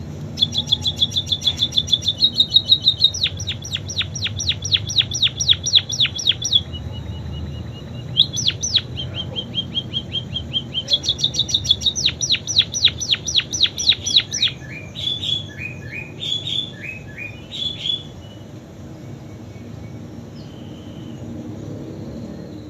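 Caged pet 'pipit' songbird singing a canary-style song. Fast rolling trills alternate with runs of repeated sweeping notes at about four to eight a second. The song breaks into scattered single notes and stops about 18 seconds in, over a steady low hum.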